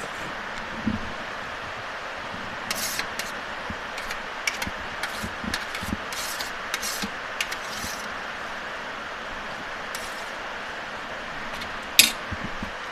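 Someone eating Maggi noodles and soup: a scatter of short clicks and slurping sounds of spoon and mouth, with one sharp, louder click near the end, over a steady background hiss.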